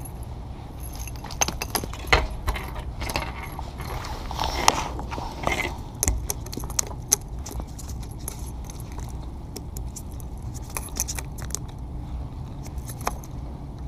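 Small metal pliers clicking and jacket fabric rustling as they are handled, over a steady wind rumble on the microphone.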